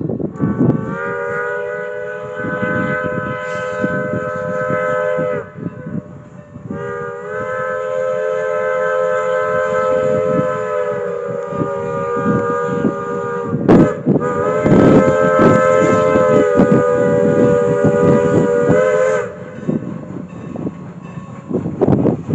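Steam locomotive sounding its whistle, a chord of several tones, in three long blasts for a road crossing, while its exhaust chuffs and the train rumbles by.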